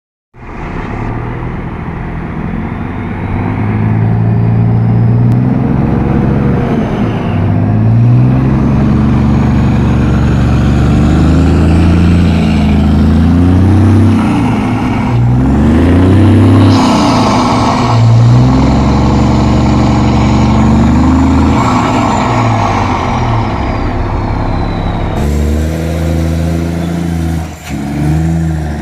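Scania truck diesel engine revving through a performance exhaust, with a deep rumble that rises and falls in pitch again and again. The sound changes abruptly about 25 seconds in, as if to another truck or recording.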